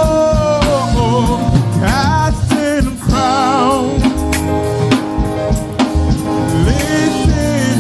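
Church praise team performing a gospel song: singers holding notes with vibrato over a drum kit and band with a steady beat.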